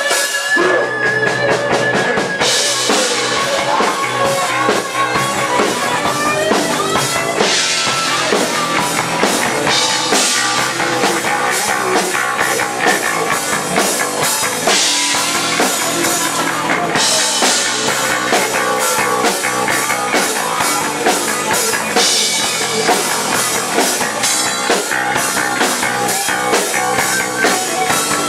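Rock band playing an instrumental passage on drum kit and guitar, with a steady fast beat and loud cymbal hits every few seconds.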